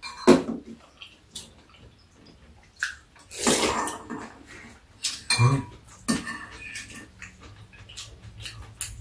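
Spoons clinking against soup bowls in short scattered clicks, with a longer wet slurp of soup broth about three and a half seconds in.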